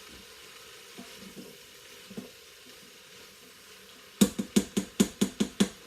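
Faint sizzle of cubed chicken browning in a Farberware electric pressure cooker's pot, with a few light ticks. Then, a little past four seconds in, a fast run of about nine sharp knocks, roughly five a second.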